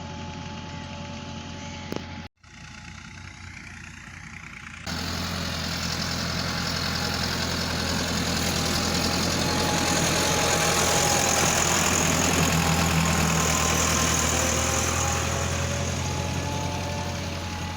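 A tractor engine running with a steady low drone, broken by two abrupt cuts in the sound about two and five seconds in. After the second cut it is louder, builds to a peak about midway, then eases off.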